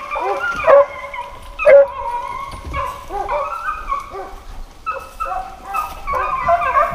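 Several hunting hounds barking, yipping and whining close by, with their calls overlapping.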